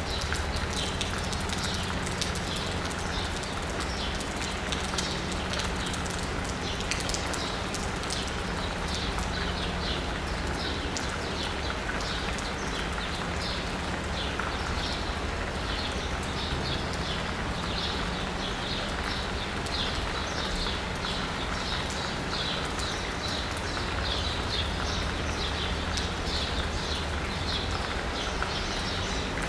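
Steady rain pattering on asphalt and a roof, with birds chirping over and over and a low, steady hum of city traffic underneath.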